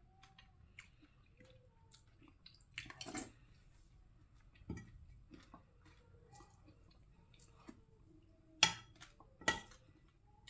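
Light, scattered clinks and knocks of dishes and cutlery in a kitchen, with a couple of louder clatters about three seconds in and two more near the end.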